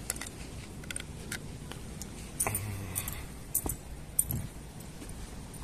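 Irregular light metallic jingling and clicks from someone walking along a concrete path.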